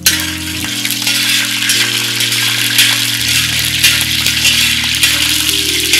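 Whole spices (bay leaves, cloves and black peppercorns) sizzling in hot oil in a copper pan. The sizzle starts suddenly as they hit the oil and keeps up steadily while a metal spatula stirs them. Soft background music with long held notes plays underneath.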